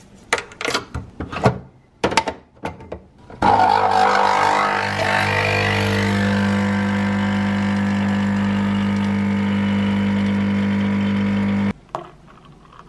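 A few clicks and knocks as a coffee capsule is handled and loaded into a capsule espresso machine. About three and a half seconds in, the machine's pump starts with a steady loud hum and hiss as it brews espresso into a cup, then cuts off suddenly near the end.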